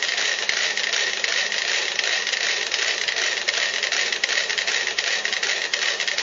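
Thirty-two mechanical metronomes on a shared swaying platform, ticking as a dense, rapid clatter of clicks. Most of them have pulled into step through the coupling of the moving platform, with a few still out of line.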